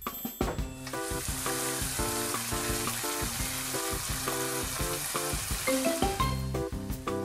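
Napa cabbage and ground meat sizzling in a frying pan as they are stir-fried with chopsticks. The sizzle builds about a second in and fades shortly before the end, over background music.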